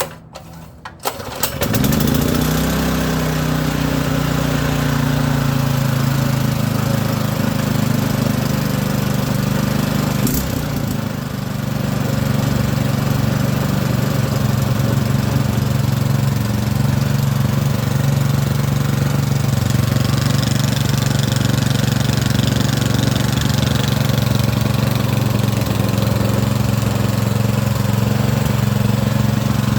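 Predator 212 single-cylinder four-stroke engine starting on the pull cord about a second in, revving up and settling into a steady run. Its speed dips briefly around ten seconds in, then holds steady again. This is the engine running again after its ignition coil and spark plug were replaced.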